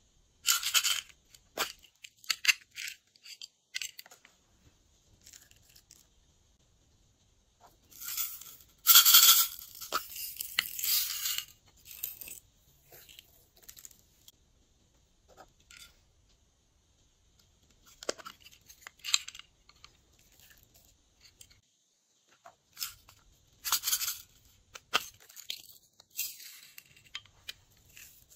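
Glossy slime being mixed and worked by hand: irregular bursts of sticky clicking and crackling with short quiet gaps, the loudest and longest burst about nine seconds in.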